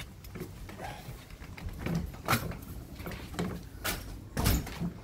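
Scattered knocks and clicks of dogs coming in through a house door onto a hardwood floor, with two louder thumps, one just over two seconds in and one about four and a half seconds in.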